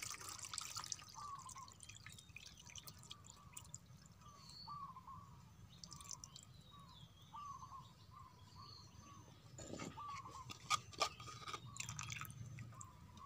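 Thick green herb juice pouring and dripping from a clay mortar through a plastic mesh strainer into a plastic cup, faint and trickling, with a few light clicks near the end as the strainer is handled.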